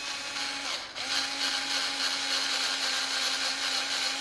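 Small cordless drill with a 2.5 mm hex bit running as it drives an M3 bolt into an RC car chassis. It makes a steady motor tone, stops briefly just under a second in, then starts again and runs steadily.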